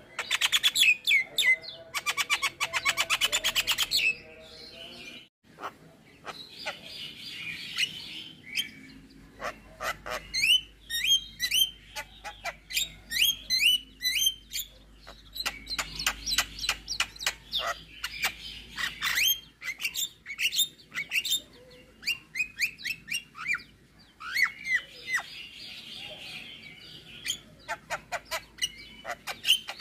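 Javan myna singing a varied song packed with mimicked phrases. It opens with a dense buzzing trill lasting a few seconds, then quick runs of sharp chirps and whistles broken by short pauses.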